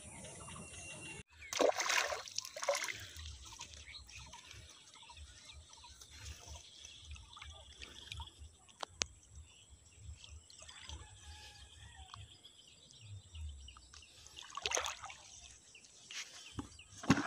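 A few short wet splashing and scuffling bursts as a freshly caught fish flaps in the hands and on the wet mud while it is unhooked, between stretches of quiet outdoor background.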